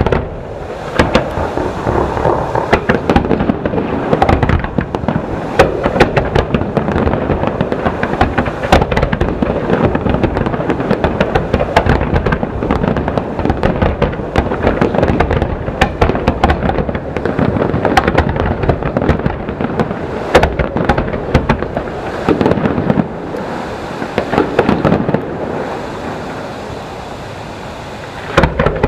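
Aerial fireworks display: shells bursting in quick succession, a steady rumble of booms dense with sharp crackling reports, thinning out a little near the end.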